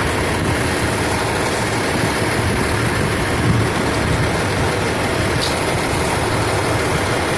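Fire engine's diesel engine idling steadily, heard close up beside the truck.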